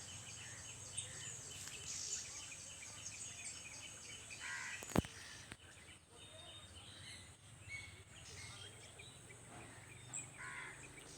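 Faint outdoor ambience with scattered short bird chirps and calls over a steady high hiss. A single sharp click about five seconds in.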